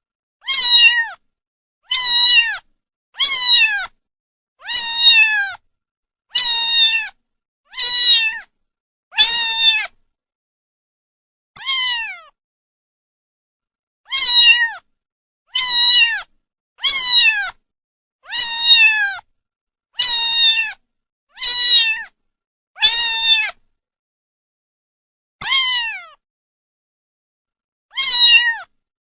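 Kittens meowing: a string of short, high meows, each falling in pitch, coming about once every second and a half, with two pauses of a few seconds.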